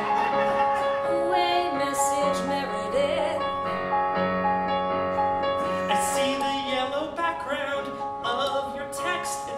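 Improvised song: a Yamaha digital keyboard played in held piano chords, with a voice singing sustained notes with vibrato over it.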